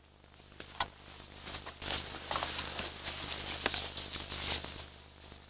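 Someone running off through dry leaves and brush: quick, irregular footsteps with crackling and rustling. It starts faint and grows busier about two seconds in.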